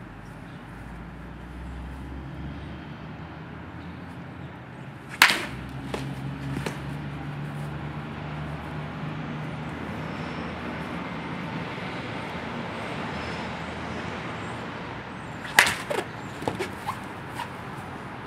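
Two sharp cracks of a baseball bat hitting balls off a batting tee, about ten seconds apart, each followed by a few lighter knocks.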